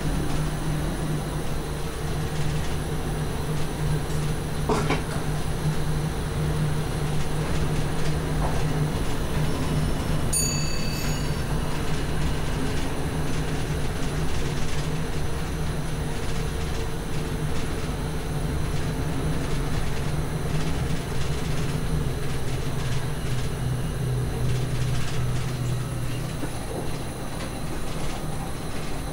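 SGM Sprinter electric multiple unit heard from the driver's cab: a steady low electric hum over train running noise, the hum shifting lower in pitch around twenty seconds in. A short high beep sounds about ten seconds in.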